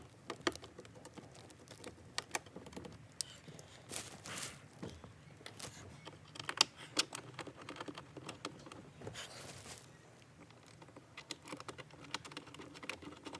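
Irregular small clicks and taps of plastic trim parts and screws being handled while a car's cabin air filter housing is refitted, with a few short rustles.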